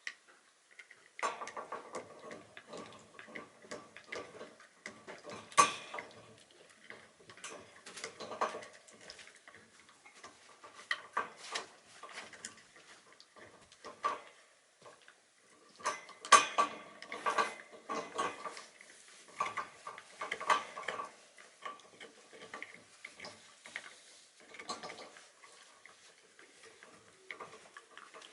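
A Shiba Inu gnawing a horse hoof chew: irregular hard clicks and crunches of teeth on the hoof, with the loudest bites about six seconds in and again past the middle.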